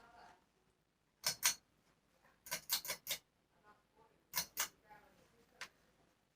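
Sharp clicks coming in quick pairs, then a run of four, then another pair and a last faint click, like a ceiling fan's pull-chain switch being stepped through its speeds.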